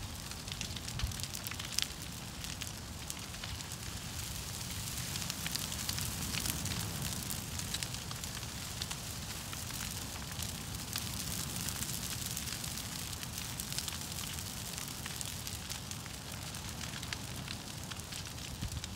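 Large brush pile of broken tree limbs burning: a steady rushing of flames with many sharp crackles and pops of burning wood throughout, over a low rumble.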